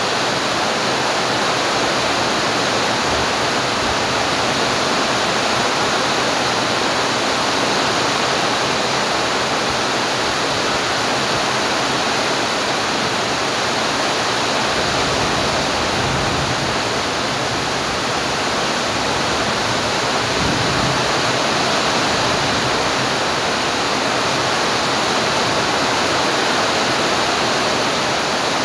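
Steady rain: a constant, dense hiss with no separate drops or other sounds standing out.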